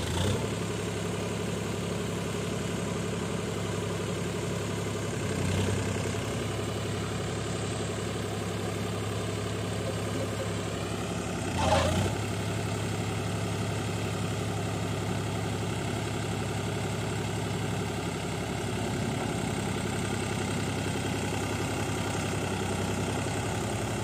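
The tractor engine of a tractor-mounted mini combine harvester running steadily at a low, even speed, with two brief louder swells, about five and twelve seconds in.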